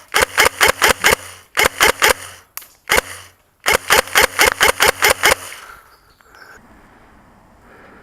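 Airsoft electric gun firing in four bursts, about six or seven shots a second, with the gearbox motor's hum under each burst. The firing stops about five and a half seconds in.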